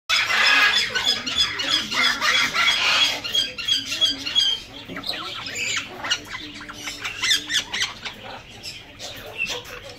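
Young yellow-naped amazon parrots squawking: a loud run of rapidly repeated calls for the first four seconds or so, then quieter, scattered calls.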